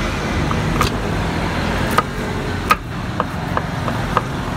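Kitchen knife chopping garlic on a wooden chopping board: a handful of short, irregular taps as the blade hits the board. Underneath runs a steady low background rumble.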